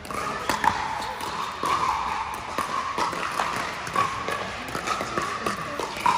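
Pickleball paddles hitting a plastic ball in a doubles rally: a run of sharp pops at irregular intervals, over steady background noise.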